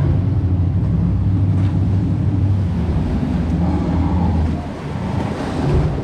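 River rapids raft riding through churning water: a deep, steady rumble for most of the stretch, giving way near the end to the hiss of rushing white water around the boat.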